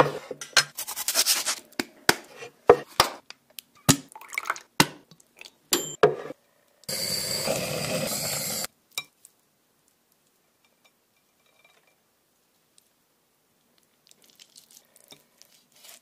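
A run of quick knocks and clicks from handling things on a kitchen counter. Then a handheld kitchen blowtorch hisses steadily for about two seconds as its flame sears a meat roast, and stops abruptly. Faint small scrapes follow near the end.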